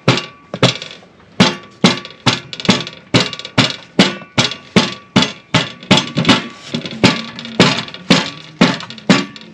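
Ginger being crushed with a pestle on a large metal tray: regular sharp pounding strikes, about two a second, with the tray ringing faintly between them.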